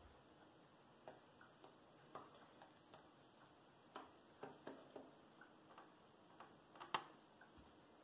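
Faint, irregular clicks and taps of a fantail pigeon's toenails on a wooden tabletop as it steps about, the sharpest tap about seven seconds in.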